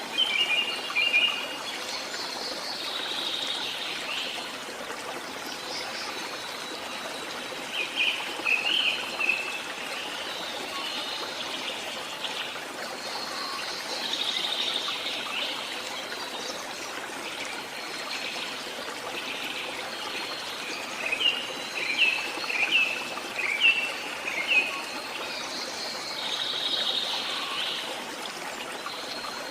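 A stream of running water trickling steadily, with small songbirds chirping over it in short bursts of quick notes now and then.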